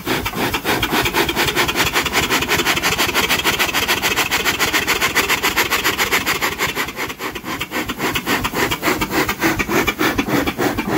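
Ward three-cylinder radial triple-expansion steam engine running under steam: a fast, even beat from the engine over hissing steam.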